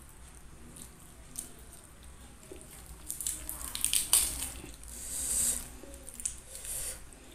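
Fresh lettuce leaves being torn and handled with the fingers: crisp rustling and crackling, loudest from about three seconds in. A few small clicks of fingers picking at fried chicken come before it.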